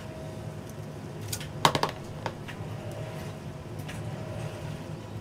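A spatula spreading cream filling over a sheet cake on a wire cooling rack, with a quick run of sharp clicks about a second and a half in and one more click shortly after, over a steady low hum.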